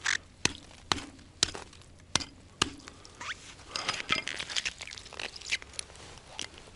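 Small hatchet chopping the ice skim on a frozen-over ice-fishing hole: six sharp knocks about two a second, to reopen the hole. These are followed by softer scraping and crunching of loose ice.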